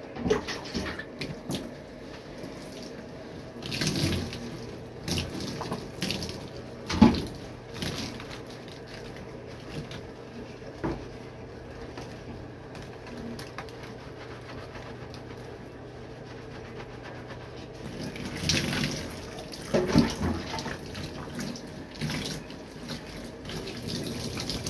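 Water running into a bathtub while shampoo-lathered hair is scrubbed by hand, with irregular wet splashes and rubbing, a few of them louder. Near the end, water is poured from a cup over the head to rinse.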